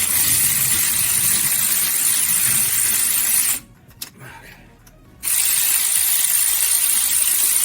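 Two long bursts of steady, high-pitched hissing, like a pressurised jet or spray. Each starts and stops abruptly, with a gap of about a second and a half between them.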